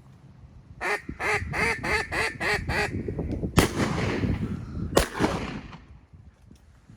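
A mallard-style duck call blown in a run of eight quick quacks, about four a second, then two shotgun shots about a second and a half apart, each trailing off in an echo.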